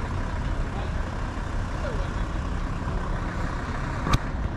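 Outdoor ambience: a steady low rumble of vehicles with faint background voices, and one sharp click about four seconds in.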